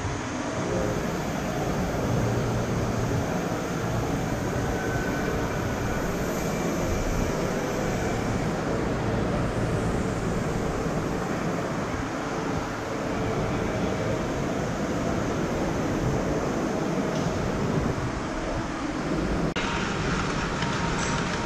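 Ride-on miniature railway train running along its track: a steady rumble of wheels on the rails.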